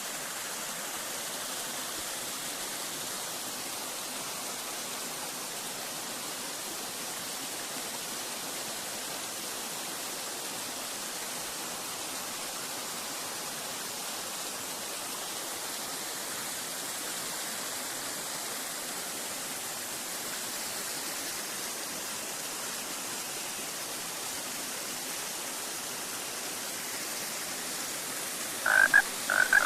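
Waterfall rushing with a steady, even hiss. Near the end, three or four short, loud frog croaks.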